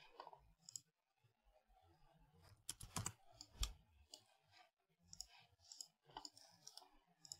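Faint, scattered computer mouse clicks over near silence, with a few louder clicks close together about three seconds in.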